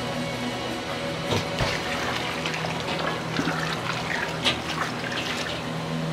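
Broth at a rolling boil in a large aluminium stockpot, bubbling steadily, with a ladle stirring it and a scatter of sharp splashes from about one to five and a half seconds in.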